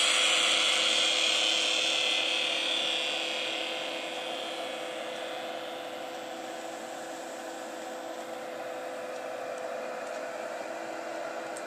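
Homemade PWM-modulated flyback plasma speaker and class-D amplifier rig running, giving a steady electrical hiss and buzz with two steady hum tones. The hiss fades over the first few seconds.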